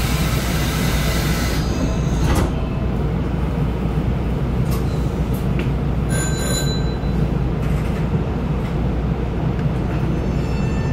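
Nankai 8300 series electric train standing at a station platform, heard from the cab: a steady low hum. A hiss comes in the first second and a half, then a few clicks and brief high tones about two-thirds of the way through.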